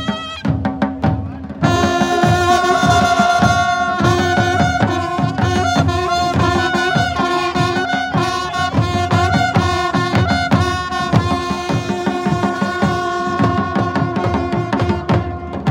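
Folk music: drums beating steadily under a wind instrument playing a held, reedy melody, louder from about a second and a half in.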